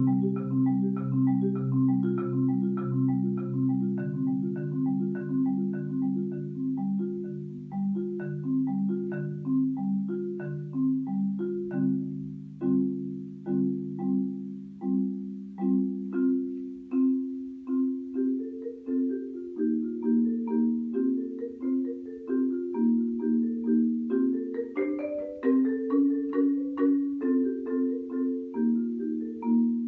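Solo concert marimba played with mallets: a steady flow of struck notes, each ringing briefly, with low bass notes under the melody in the first half, then the music moving into a higher register a little past halfway.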